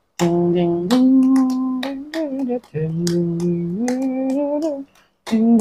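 A voice humming a short tune of held notes stepping up in pitch, the phrase sung twice, with light clicks of taps on a phone keypad.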